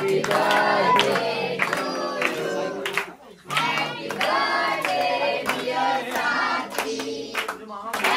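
A group of adults and children singing a birthday song together and clapping along, with a short break about three seconds in.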